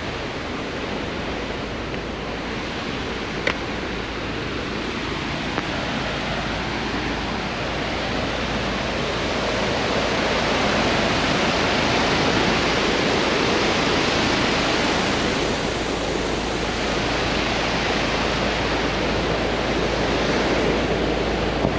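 Steady rushing of a wide man-made river waterfall, swelling a little toward the middle. There is a single sharp click a few seconds in.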